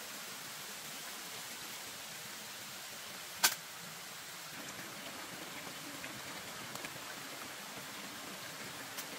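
Steady hiss of outdoor background noise, with one sharp click or knock about three and a half seconds in and a fainter one near the end.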